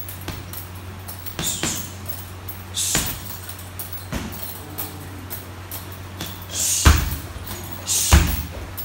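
Gloved punches and shin kicks landing on a hanging Muay Thai heavy bag: irregular sharp thuds a second or so apart, the loudest two near the end. Short hisses come just before several of the strikes.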